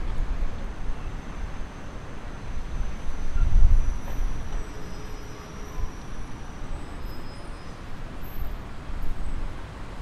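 City street background noise: a steady low rumble of road traffic that swells for a moment about three and a half seconds in, as if a vehicle is passing.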